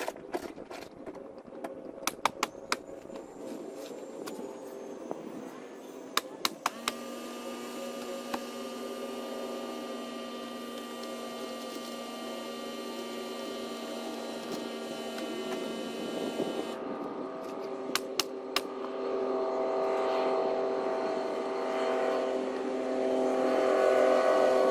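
Ridgid coil roofing nailer firing nails into shingles: quick clusters of sharp shots near the start, again around six seconds and briefly near eighteen seconds. From about seven seconds a steady motor hum with several tones runs underneath and grows louder toward the end.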